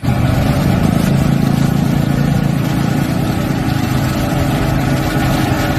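Cement mixer truck engine running steadily, starting abruptly.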